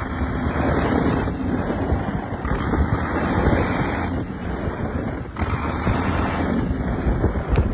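KAMAZ truck's diesel engine running as the truck pushes through deep drifted snow, mixed with heavy wind buffeting the microphone that rises and falls in gusts.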